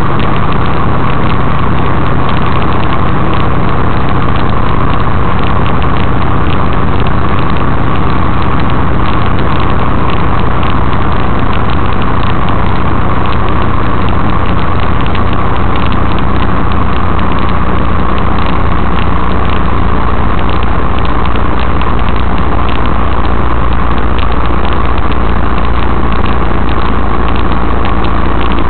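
Steady, loud engine and road noise of a semi truck driving at highway speed, heard from inside the cab.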